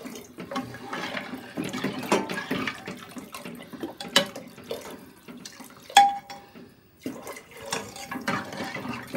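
Water poured from a steel bowl into an open pressure cooker of curry, with a ladle stirring and knocking against the metal. A sharp metal clink about six seconds in rings briefly.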